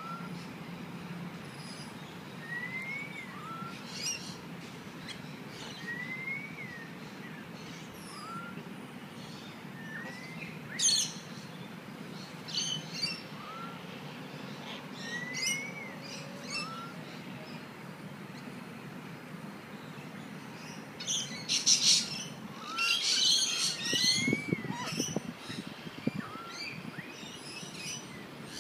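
Birds calling: a short whistled note that rises and falls, repeated every few seconds, with sharper high chirps between. A louder burst of harsh chattering calls comes about three quarters of the way through, all over a steady low background hum.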